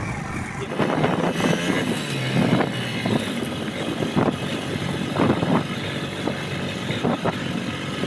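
Motorcycle running as it rides along a rough gravel dirt road, with frequent irregular knocks and jolts.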